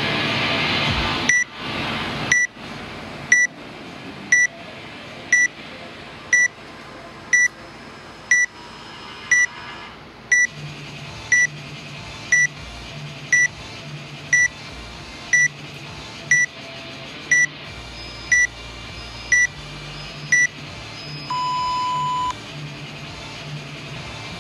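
Workout countdown timer giving a short high beep about once a second, some twenty in a row, then one longer, lower beep about 21 seconds in that signals the start of the workout.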